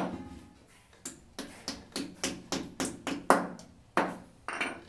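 Claw hammer tapping plastic wall plugs into holes drilled in a ceramic-tiled floor for the toilet's fixing screws: about a dozen sharp knocks, coming roughly three a second through the middle.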